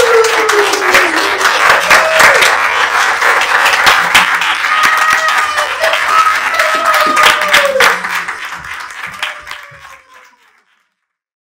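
Audience applauding, with a few whoops and cheers over the clapping; it fades out to silence about ten seconds in.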